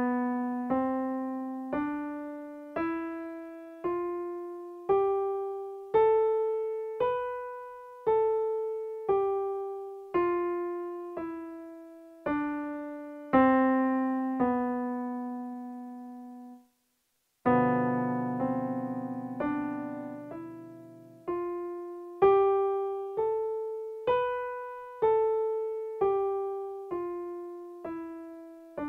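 Piano playing the Locrian scale, one note about every second, up an octave and back down to a held final note. A few chords follow, and then the scale starts up and down again.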